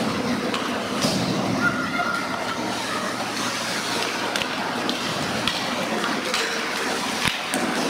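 Youth ice hockey play in an echoing indoor rink: steady scraping of skates on the ice, with scattered sharp clacks of sticks and puck.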